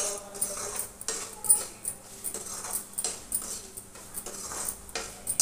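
Metal spatula scraping and knocking around a kadhai, stirring and roasting spiced onion masala: irregular scrapes and clinks, with a brief squeaky ringing tone near the start.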